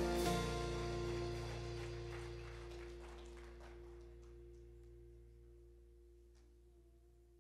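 Worship band's final chord ringing out after the last hits and slowly fading away.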